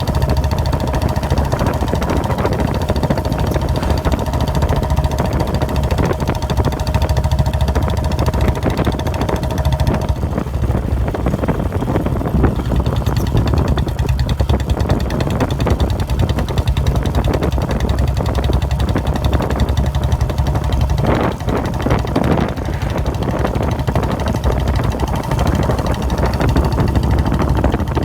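Royal Enfield Bullet Standard 350's single-cylinder engine running steadily with its deep, heavy thump.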